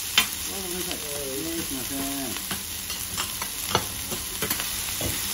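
Shredded cabbage sizzling on a hot teppan griddle, stirred and tossed with two metal spatulas whose blades click and scrape against the plate several times.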